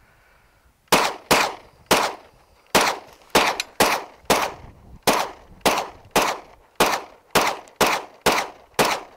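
Smith & Wesson M&P9 9mm semi-automatic pistol fired in a rapid string. About fifteen shots, roughly two a second, starting about a second in.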